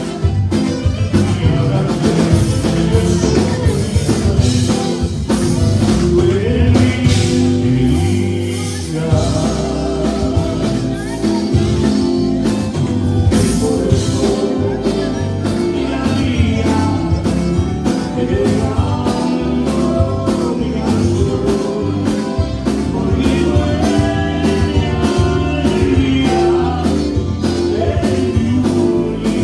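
A live Tejano conjunto band playing a song: button accordion, electric guitars, bass and drum kit, with a man and a woman singing into microphones.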